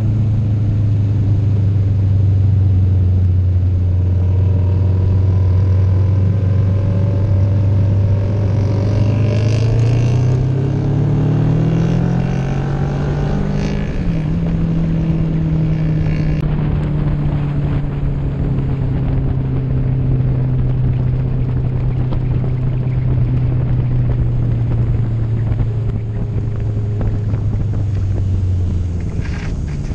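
Motorcycle engine running at a steady cruise under a constant rush of wind noise, heard from a camera on the moving bike. The revs climb about ten seconds in, drop slightly after a gear change, hold steady again, and the engine note fades away near the end.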